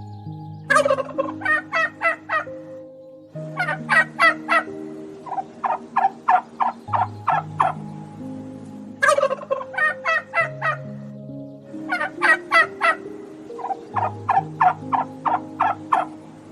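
Turkey gobbling again and again. Each gobble is a quick rattling run of short notes, and they come in groups every few seconds.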